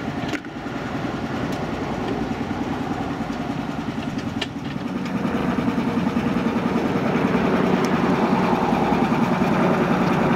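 Miniature railway diesel-outline locomotive's engine idling with a steady, rhythmic beat, growing louder about halfway through. A sharp click comes right at the start and another about four seconds in.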